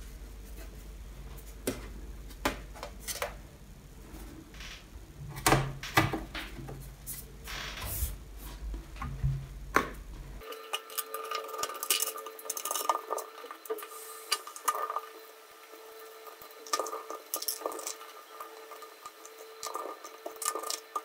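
Scattered light metallic clicks and taps from a MacBook Pro's aluminium bottom case being fitted back on and its small pentalobe screws being handled and driven with a screwdriver.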